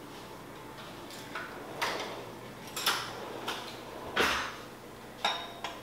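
A kitchen drawer being opened and shut and cutlery clattering as a fork is fetched: a string of about seven short, sharp knocks and clinks, the loudest a little past the middle.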